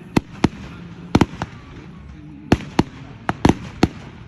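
Fireworks display going off: a rapid, irregular series of sharp bangs and crackles, some in quick pairs and clusters, over a steady crowd-and-city background.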